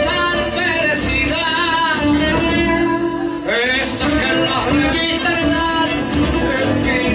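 Argentine folk music played on acoustic guitar, with singing.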